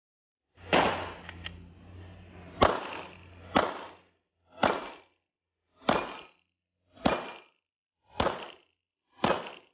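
A handgun fired eight times, one shot at a time; after the first few shots they come at a steady pace of about one a second.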